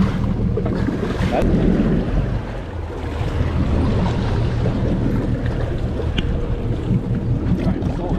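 Boat engine running steadily under a wash of water splashing against the hull as a hooked sailfish thrashes alongside.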